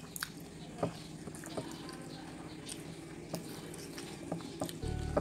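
Wet chewing and lip smacks of someone eating rice and fried fish by hand, with scattered small clicks. A dull low bump comes near the end.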